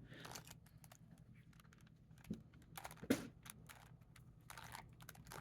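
Faint, irregular plastic clicking of a Rubik's Cube being handled and its faces turned, with one slightly louder click about three seconds in.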